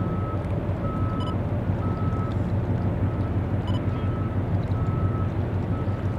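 Low steady drone of a large container ship's engines passing close by, with a reversing alarm beeping about once a second and two brief high chirps.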